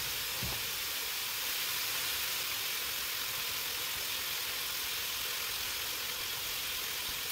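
Ground beef sizzling as it browns in a stainless steel pot: a steady hiss.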